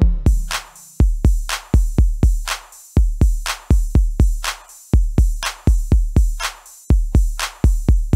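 Background music: a drum-machine beat of deep kick drums with a snare hit about once a second, and no melody.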